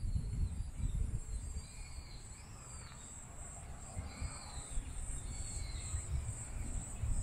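A steady, high-pitched chorus of insects chirring, with short arched chirps repeating every second or so and a low rumble underneath.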